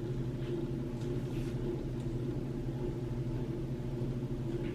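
A steady low hum with a few faint, brief rustles.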